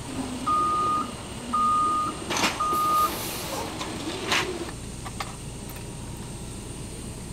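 Reversing alarm on work equipment beeping three times, each a steady half-second beep at one pitch, over a low engine rumble. Two sharp knocks sound between and after the beeps.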